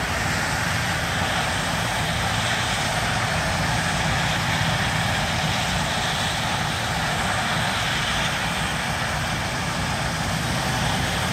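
Steam shovel working hard: a steady rush of steam exhaust over a low rumble, the strong draft throwing sparks out of its stack.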